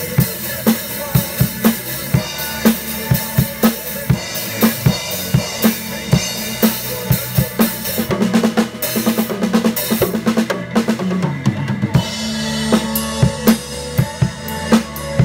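Acoustic drum kit played to a steady beat: bass drum and snare strokes with Zildjian cymbals. About eight seconds in there is a busier run of rapid hits and cymbal crashes.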